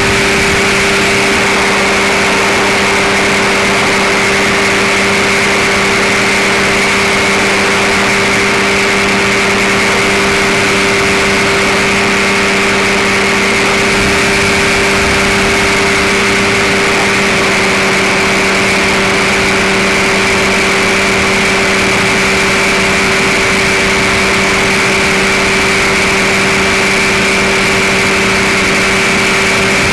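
Powered parachute's engine and propeller running steadily in flight: a constant, loud drone whose pitch holds level throughout.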